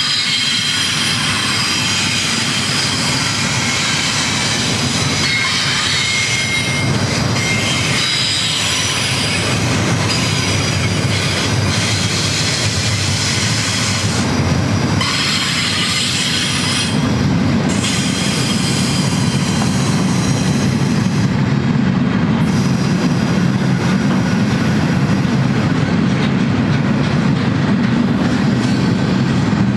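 Double-stack intermodal container train rolling past: the steady rumble and clatter of steel wheels on rail. Thin, high steel wheel squeal rings over it through roughly the first half, and the low rumble grows heavier later on.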